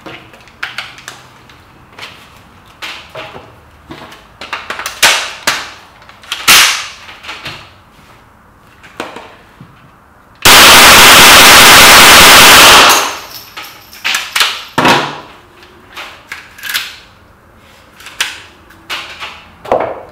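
GSG StG44 .22 rimfire semi-automatic rifle fired in a rapid string of shots that merge into one loud, clipped burst lasting about two seconds, a little past halfway. Sharp clicks and knocks come before and after it.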